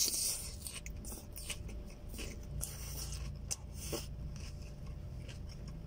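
Chewing a mouthful of fresh salad vegetables, with scattered soft crunches and scratchy clicks.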